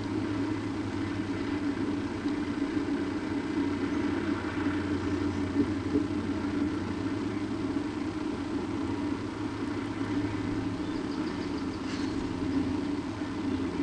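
A steady low hum, with a short run of faint ticks near the end.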